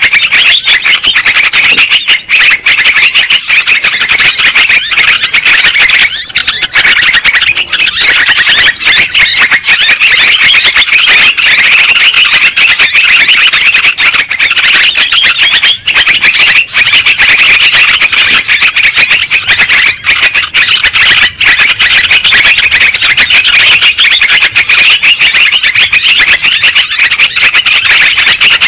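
Lure recording of trucukan (yellow-vented bulbuls) calling: a dense, nonstop chatter of many overlapping high calls, played very loud.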